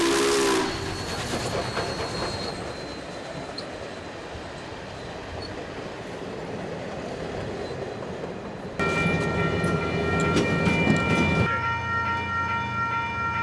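Union Pacific steam locomotive: its whistle chord cuts off under a second in, leaving the rush and rumble of the train. The whistle sounds again about nine seconds in, its low notes dropping out after a few seconds while the higher notes hold on.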